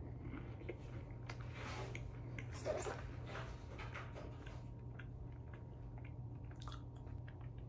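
Faint crunching and chewing of a green-onion cracker, with scattered small clicks and crackles, over a steady low room hum.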